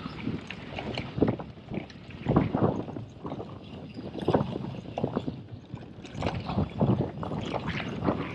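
Orbea Rallon full-suspension mountain bike descending a rough trail at speed: irregular clattering knocks from the wheels, chain and frame as it hits rocks and bumps, with wind rushing over the microphone.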